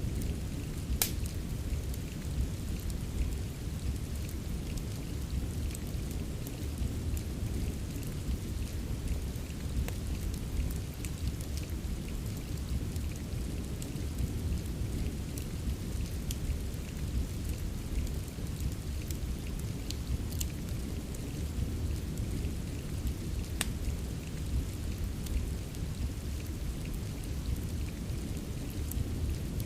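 Steady rain ambience with a low rumble underneath, mixed with a fireplace: sharp wood crackles and pops scattered irregularly through it, a louder pop about a second in.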